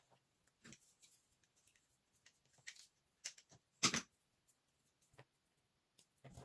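Puffed microwaved soap dusted with cornstarch being crushed by hand: scattered soft crackles and taps, with one louder crisp crunch about four seconds in.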